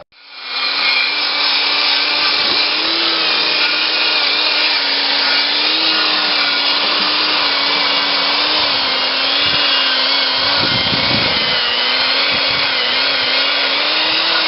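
1953 Massey-Harris Pony tractor's engine running steadily at a fairly high speed, with a constant wavering hum over loud mechanical noise. It comes up quickly at the start and holds an even level throughout.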